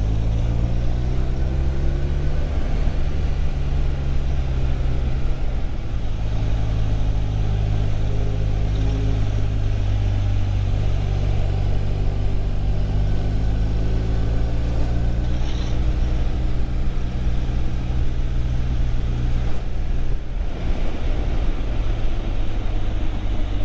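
Motorcycle engine running at cruising speed under wind and road noise, its note rising and falling gently with the throttle.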